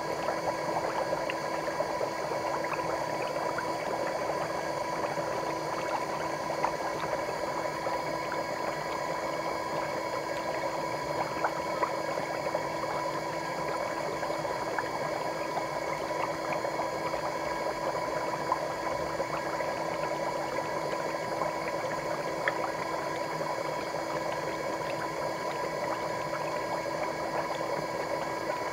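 Electric foot spa bath running: water bubbling steadily with a fine crackle of popping foam, over a steady motor hum.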